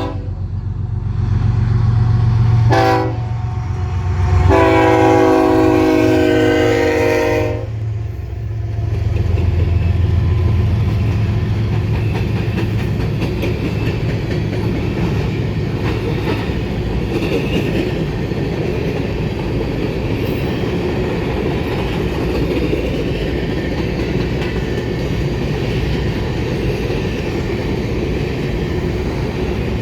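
Diesel locomotive passing with its multi-tone air horn: a short blast about 3 s in, then a long blast over the deep rumble of the engine. From about 8 s on, the train's cars roll past with a steady rumble and clatter of wheels on the rails.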